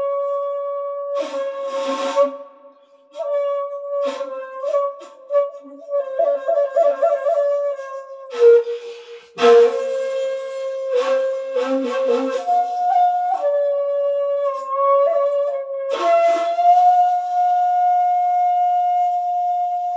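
A 2.6 jinashi wide-bore bamboo shakuhachi pitched in G#, played solo in slow held notes that bend and waver. Several hard, rough breath blasts break in, with quick fluttering ornaments in between, and it settles on a long, steady higher note held to the end.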